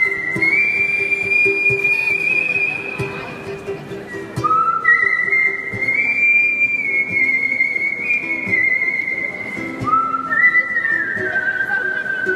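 Artistic whistling: a slow melody in three phrases, each stepping up to long held high notes with vibrato.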